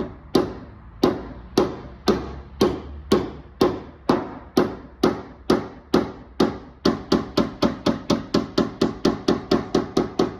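Hammer tapping on a car body panel, knocking out a slight crease. The blows are sharp and ringing, at an even pace of about two a second, then quicker and lighter taps from about seven seconds in.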